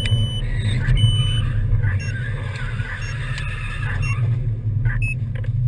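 Steady low engine and road hum inside a moving vehicle, with a short electronic beep repeating about once a second.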